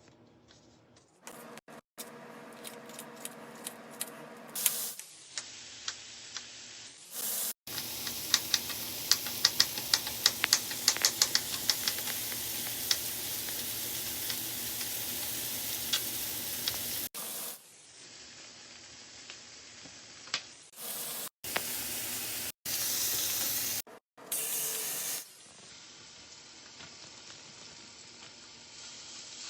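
Food frying in a pan of hot oil, with a steady sizzle and, in the loudest stretch, many sharp crackling pops. The sizzle comes in short clips that start and stop abruptly, some louder and some quieter.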